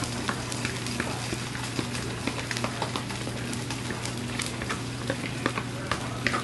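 Cornbread batter sizzling and crackling in a hot greased cast iron skillet as it is poured in, with many small scattered pops. The sizzle is the sign that the skillet is preheated enough to give the cornbread a crusty bottom.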